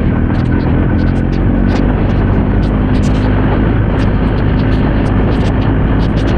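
BMW R 1250 GS boxer-twin engine running steadily on the move, under wind rush, with frequent sharp ticks over it.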